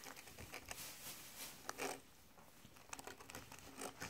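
Faint crinkling of a plastic bag of cookies with small, scattered crunchy clicks as hamsters crawl inside it and nibble the cookies.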